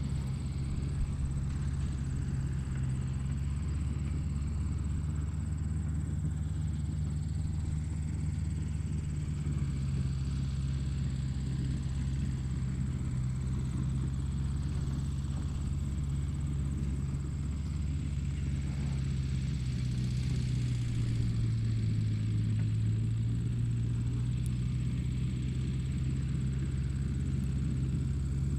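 A motor running steadily with a low droning hum, its pitch dipping briefly about two-thirds of the way through.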